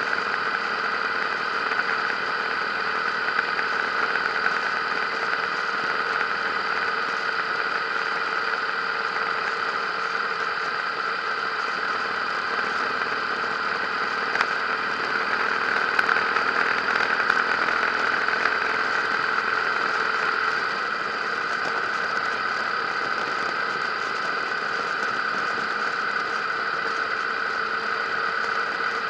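Harley-Davidson V-twin motorcycle engine running steadily at cruising speed, with wind rush, as picked up by a camera mounted on the moving bike. The engine note swells slightly about halfway through.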